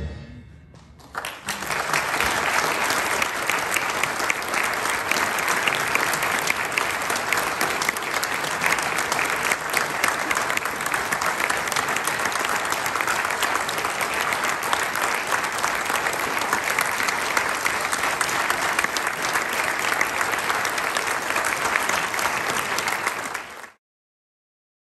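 Concert audience applauding at the end of a piece, a dense steady clapping that starts about a second in and cuts off abruptly near the end.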